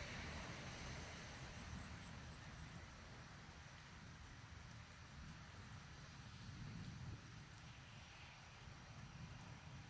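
Faint low rumble that swells and eases, with a soft high-pitched chirp repeating about four times a second.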